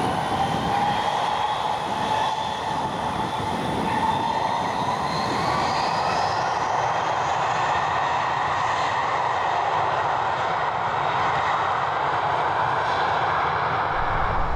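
Jet engines of an Airbus A320-family airliner running on the airfield: a steady, loud rush of engine noise with a whine that rises in pitch over the first several seconds and then holds.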